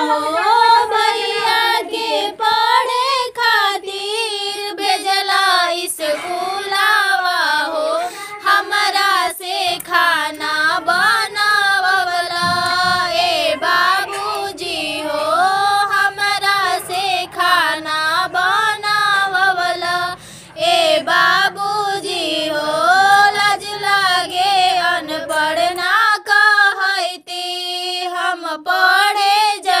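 A high solo voice singing a Bhojpuri folk song, with sliding, wavering held notes and a brief pause near the end.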